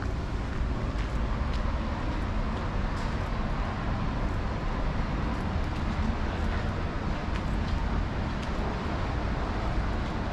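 Steady road traffic noise of a city street, with faint footsteps ticking over it.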